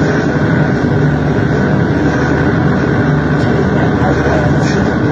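Harsh noise music: a loud, dense, unbroken wall of rumbling noise, heaviest in the bass, with no clear beat or melody.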